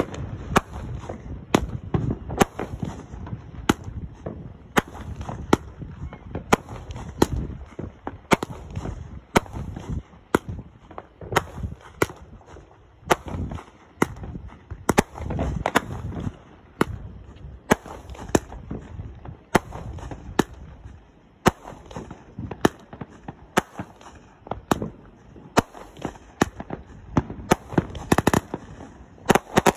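Consumer aerial fireworks firing shot after shot, each launch and burst giving a sharp bang, about one or two a second, with a louder rush of noise at the very end.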